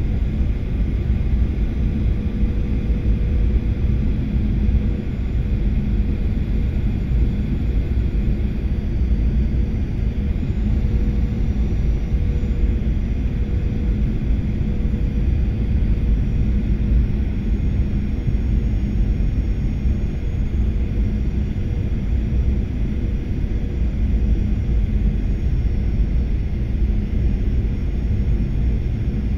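Steady low rumble of an airliner's engines and rushing air heard inside the passenger cabin during the descent to land, with a faint steady hum running through it.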